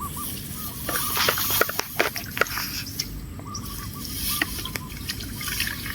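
Water trickling and dripping, with many small splashes and clicks that come thickest in the first half. A short chirping call repeats faintly a few times.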